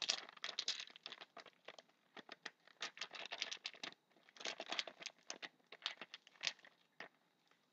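A foil trading-card pack wrapper being torn open and crumpled, a run of quick irregular crinkles with two short pauses.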